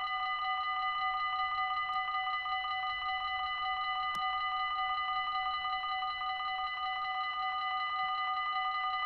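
Dutch level-crossing warning bell ringing steadily in rapid, even strokes, the sign that the crossing is active. One faint click about four seconds in.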